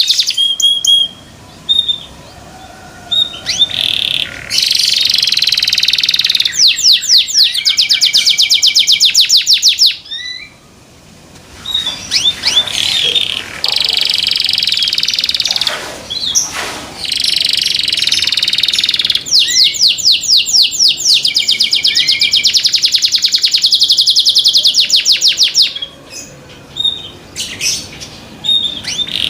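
Domestic canary singing loudly: long, fast trills of rapidly repeated high notes, broken by short pauses.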